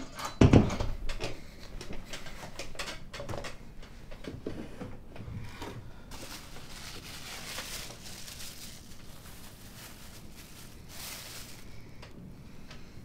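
A door shuts with a thud, followed by a run of small clicks and knocks as objects are handled. Two stretches of soft hiss come later.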